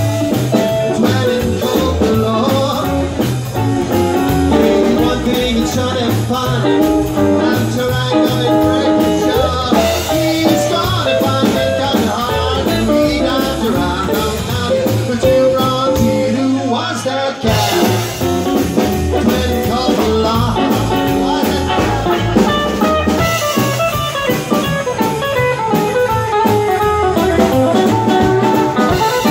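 Live rockabilly band playing: hollow-body electric guitar, upright double bass and drum kit, with a steady beat.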